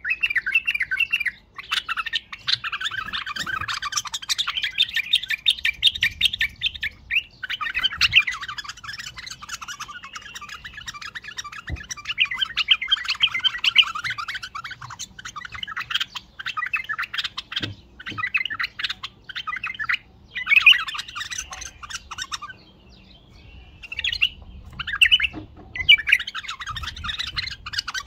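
White-eared bulbul singing a loud, rapid, chattering warble in long phrases. The song breaks off briefly a few times, with a longer pause near the end.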